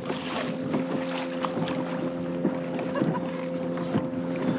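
Water slapping and splashing around a kayak at sea, with wind on the microphone, over a steady low hum.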